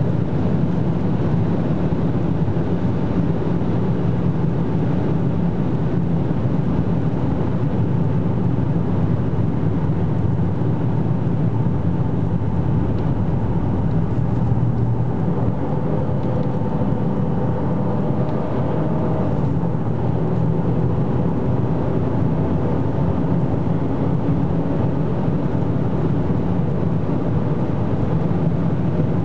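Cabin noise inside an Opel Insignia OPC at Autobahn speed: wind, tyre roar and the drone of its turbocharged 2.8-litre V6, loud and steady. The car eases down from about 240 km/h and then accelerates again in the second half.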